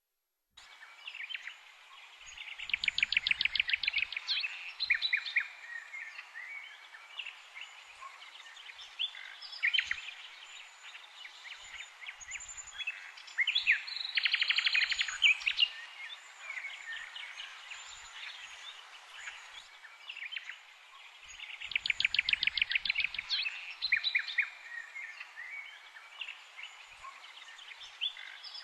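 Birds singing, a chorus of chirps and fast trills over a steady background hiss, starting about half a second in.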